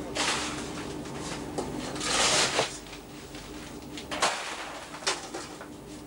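Plastic fish crates scraping and knocking as they are shifted and stacked: two drawn-out scrapes, the louder one about two seconds in, then sharp knocks after about four seconds, over a steady hum.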